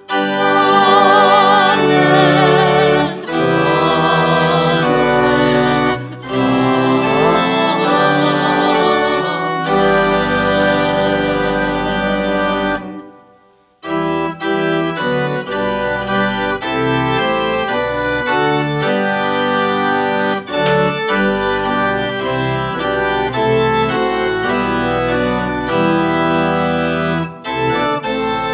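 Organ playing sustained full chords. The music fades almost to silence a little before halfway through, then starts again.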